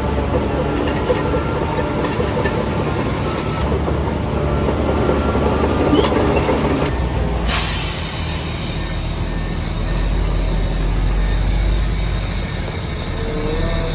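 Heavy earthmoving machinery working: a diesel engine rumbling under squeaks and clatter. About halfway through, a steady hiss starts suddenly and the low rumble deepens.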